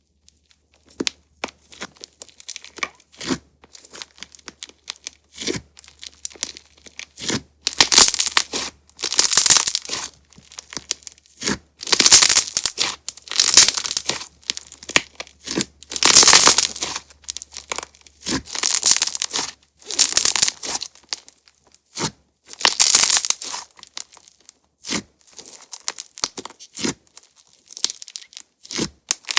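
Crunch-texture slime being squeezed and pressed by hand, crackling and popping. It starts with scattered small clicks, then from about a quarter of the way in comes a run of loud crackling bursts every second or two.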